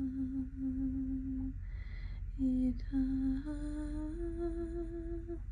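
A woman singing in tongues: long held notes on wordless syllables such as "ita", with a breath about two seconds in and the pitch stepping up twice in the second half.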